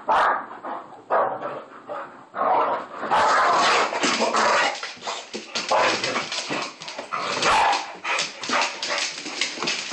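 Dogs barking and yipping in rapid, overlapping bursts, with whimpering, during rough play-fighting.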